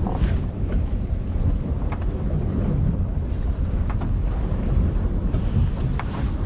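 Wind buffeting the microphone on a boat at sea, a steady low rumble, with a few light clicks about every two seconds.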